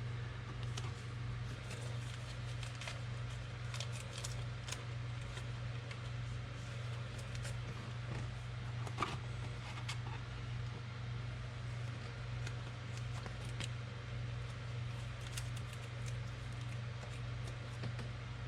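Faint clicks and slides of trading cards being handled, scattered irregularly, over a steady low hum.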